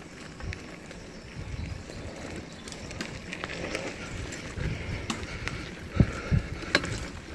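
Bicycle rolling over a bumpy dirt trail: a steady rumble of tyres and frame with scattered rattles, and two sharper knocks about six seconds in.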